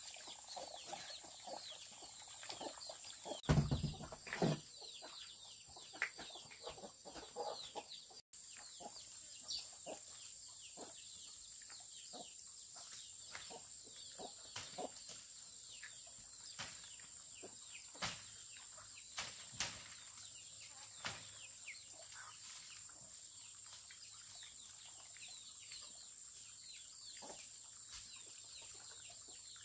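Chickens clucking on and off over a steady high hiss, with a brief louder flurry about three and a half seconds in.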